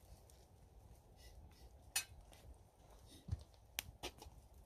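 Metal kettle being lifted off a tripod's chain hook over a campfire, giving a few clinks and knocks of metal on metal. A sharp clink about two seconds in is the loudest, and lighter knocks follow near the end.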